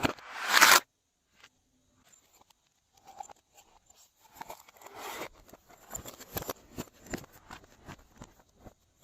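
Glossy slime being squished and worked by hand: a loud crackling squish that stops suddenly just under a second in, then after a short lull scattered sticky clicks and pops.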